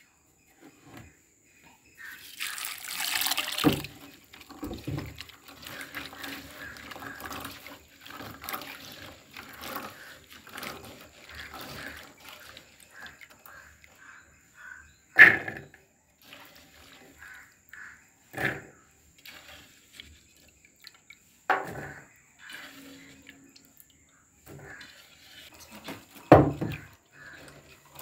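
Liquid poured into a clay pot for a couple of seconds, then clay pots knocking sharply four times as they are handled, with light rustling of shallots in between.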